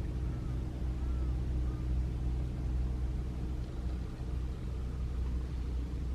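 Strong wind buffeting the microphone: a steady low rumble that swells and dips.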